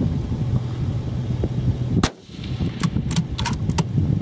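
A single suppressed .260 Remington rifle shot about two seconds in, followed by a few quick sharp clicks, over a steady low engine hum.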